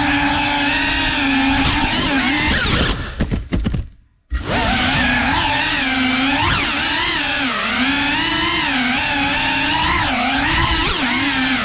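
FPV quadcopter motors whining, the pitch wavering up and down constantly with the throttle. About three seconds in the whine sinks away almost to silence for about a second, then comes straight back.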